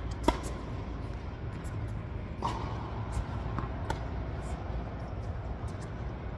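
Tennis ball pops from racquet strikes and bounces during an indoor doubles rally: a sharp pop about a third of a second in, the loudest, then several more between about two and a half and four seconds in, echoing briefly. A steady low hum runs under them.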